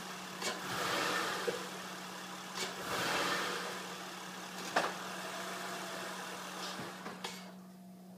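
Honda Accord V6 engine running with a steady hum, swelling twice as it is revved about a second and three seconds in, with several sharp knocks along the way; the owner suspects worn motor mounts. The engine noise drops off near the end.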